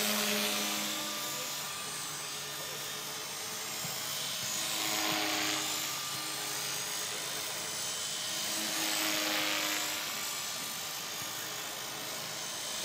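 HK-450 electric RC helicopter in flight: the whine of its motor and gears and the whoosh of the main rotor. The sound swells and fades about every four to five seconds as the helicopter moves around the sky.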